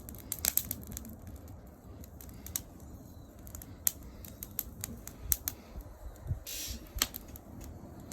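Wood fire crackling: irregular sharp snaps and pops, with a brief hiss about six and a half seconds in.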